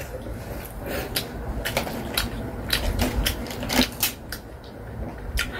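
Close-miked eating sounds: chewing a mouthful of spicy stir-fried ramyeon noodles, with a string of sharp, irregular wet mouth clicks and smacks.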